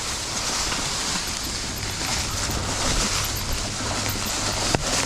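Wind and tyre noise from a mountain bike being ridden along a dirt trail, with a sharp knock near the end.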